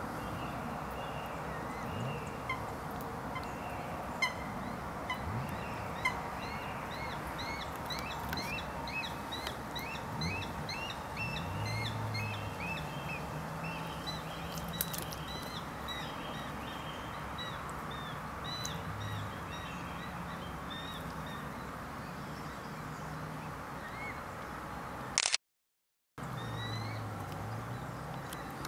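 Outdoor ambience with a small bird's rapid, repeated chirps in the background and a few low, drawn-out honk-like calls. The sound cuts out for about a second near the end.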